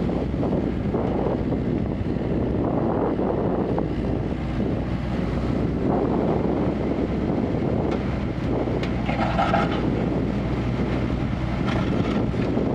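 Kubota KX161-3 mini excavator running steadily while it works, its diesel engine giving a constant low drone. A brief higher-pitched tone sounds about nine seconds in.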